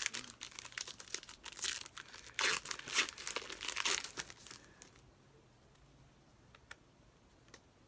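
Trading-card pack wrapper being torn open and crinkled for about four and a half seconds, then a few faint ticks as the cards are handled.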